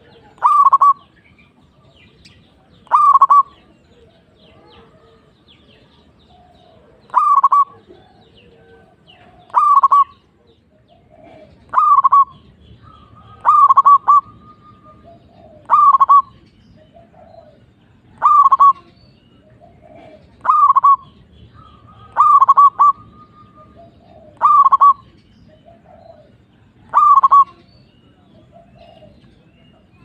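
Zebra dove (perkutut) singing its cooing song: a loud, short phrase repeated about every two seconds, a dozen times, with softer bird calls in between.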